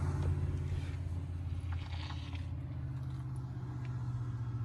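2011 Ram 2500 pickup's engine idling steadily, heard inside the cab, with light rustling a couple of seconds in.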